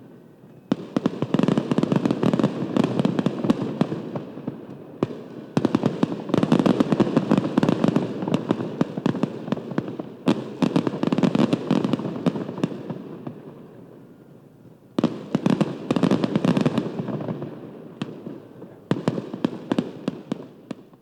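Dense, rapid crackling pops in about four bursts, each starting suddenly and dying away, ending with an abrupt cutoff.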